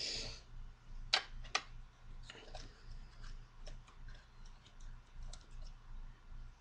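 Small clicks and ticks of a tiny screwdriver and parts being handled while an iPod is taken apart: a brief scrape at the start, two sharper clicks about a second in, then scattered light ticks, over a low steady hum.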